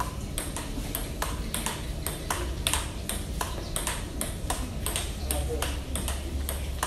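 Table tennis rally: the ping-pong ball clicking back and forth off the paddles and the table, a quick steady run of about three to four sharp clicks a second.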